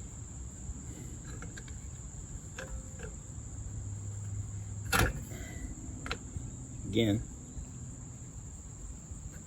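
Crickets trilling steadily in the background, a continuous high-pitched tone. A single sharp knock sounds about five seconds in.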